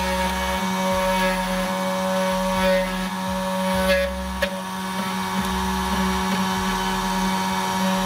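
Xhorse XC-002 Pro manual key cutter's high-speed milling motor running steadily as its cutter mills a single-sided key blank, a steady hum with light scraping of the cutter on the metal and a few short clicks.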